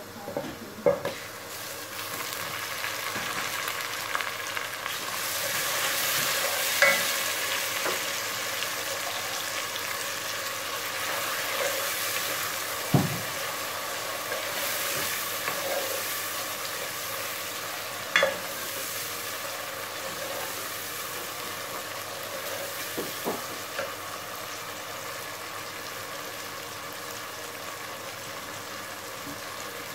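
Chopped tomatoes sizzling in hot oil with fried onions in a steel pot, stirred with a wooden spoon that knocks sharply against the pot a few times. The sizzle swells over the first several seconds, then slowly dies down.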